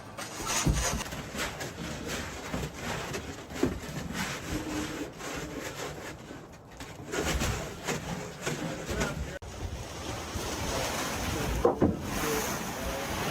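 Snow being shovelled and scraped off the roof logs: irregular scrapes and knocks over a steady rush of wind noise. The sound changes abruptly about nine seconds in.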